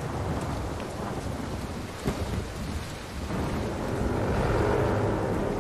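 Heavy rain pouring down with a low rumble under it, and a single thud about two seconds in. Low sustained music tones swell in over the second half.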